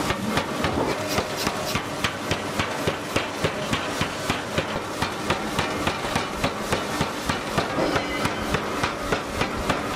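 Forging hammer pounding a red-hot steel billet between its dies, striking in quick, even blows about three times a second.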